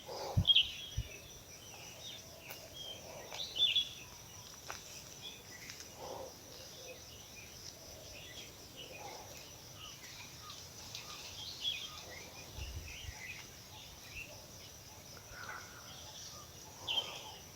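Several small birds chirping in short, scattered calls, over a steady, fast-pulsing high insect trill.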